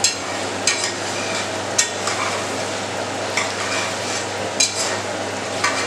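Slotted metal spatula stirring thick chicken curry in a pot, scraping and knocking against the pot about once a second, over a steady sizzle of the gravy frying on a high flame. The gravy is releasing its oil, the sign that it is nearly done.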